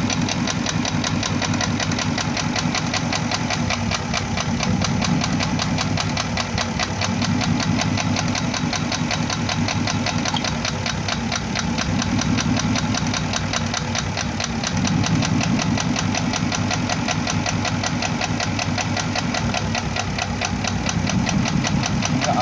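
Porsche Cayenne Turbo (955) twin-turbo V8 idling with a steady rapid knock from one cylinder head, which the mechanics suspect is piston scuffing. The low part of the engine note shifts every few seconds as individual ignition coils are unplugged, but the knock does not go away.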